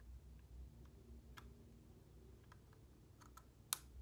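Sparse, faint clicks of a Canon PowerShot G7 X Mark II compact camera being handled, its buttons and controls pressed, with one sharper click near the end.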